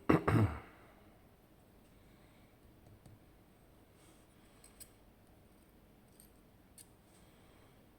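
Small metal lock parts and tools clattering and clicking against each other and the work surface as a high-security pin-tumbler lock is disassembled. A sharp cluster of clicks and a knock comes right at the start, followed by a few faint, scattered ticks.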